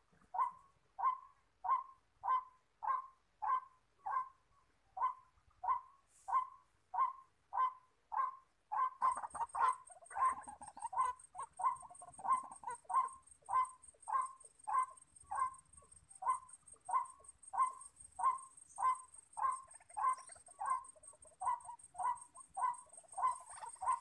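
White-breasted waterhen calling: a steady, even series of short 'kwak' notes about twice a second. From about nine seconds in, a thin high steady tone and a busier layer of overlapping calls join in.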